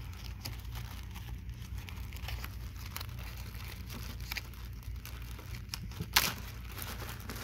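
Clear plastic zip-top bag crinkling and rustling as fingers work its seal open, with faint scattered ticks and one sharp louder snap about six seconds in. A steady low hum runs underneath.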